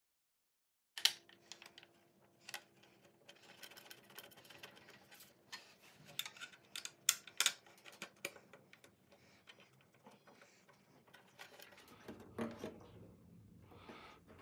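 Irregular small clicks and light knocks of a screwdriver working the screws and the plastic dust chute being handled on a thickness planer, giving way to soft rustling near the end.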